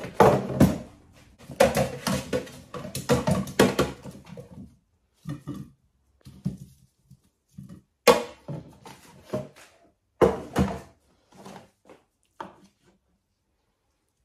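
Air fryer basket drawer pulled out, then a metal slotted spoon scraping and clacking against the non-stick basket as roast potatoes are scooped out onto a plate. A dense run of knocks and scrapes comes first, then scattered ones with sharp clacks about eight and ten seconds in.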